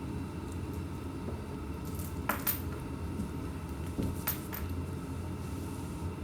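A few short, light clicks and clinks in two small clusters, about two and four seconds in, over a steady low hum: small handling and eating sounds at a table.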